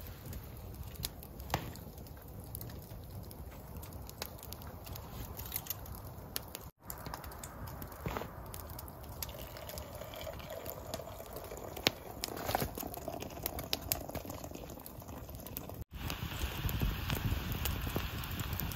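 Hot water poured from a stainless steel Kelly Kettle into a mug, the pour rising slightly in pitch as it goes on, with light metal clinks from handling the kettle. Near the end, a twig fire crackles in the kettle's fire base.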